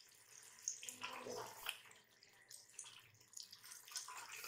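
Potatoes and mutton frying in oil in an open aluminium pressure cooker: a faint, steady sizzle as the potatoes are browned before water is added. A spatula makes a few short scrapes and knocks against the pot, the clearest a little after a second in.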